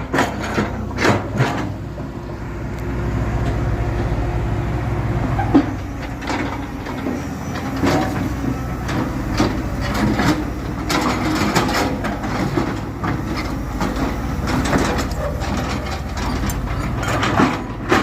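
Diesel engine of heavy earth-moving machinery running steadily, with repeated knocks and clanks of the working machine throughout.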